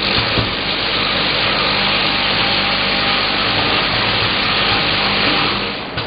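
Automatic bottle filling and capping machine running: a loud, steady whirring hiss over a low hum, starting abruptly and cutting off just before the end.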